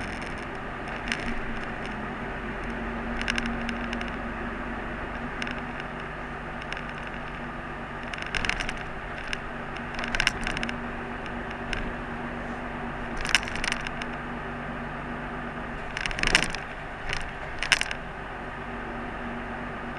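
Interior of a moving route bus: steady engine hum and road noise, with several short sharp rattles and clacks from the cabin, the loudest near the end.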